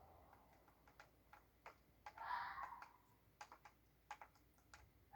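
One harsh screech about two seconds in, lasting under a second, amid faint scattered clicks. The recorder guesses it is a fox screaming at night.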